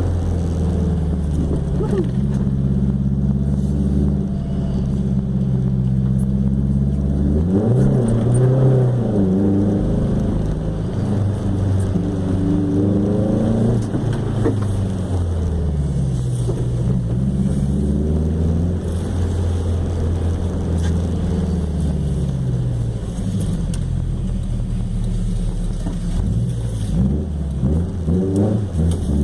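Chevrolet Chevette 1.6 S four-cylinder engine with a 4-into-1 header and open pipe, loud while driving, revving up and dropping back several times as it accelerates and eases off.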